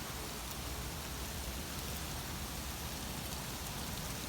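Ice pellets and snow falling: a steady hiss with faint scattered ticks of ice striking surfaces.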